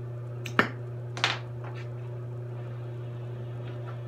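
Glassblowing bench torch being lit: two sharp pops about two thirds of a second apart, over a steady low hum.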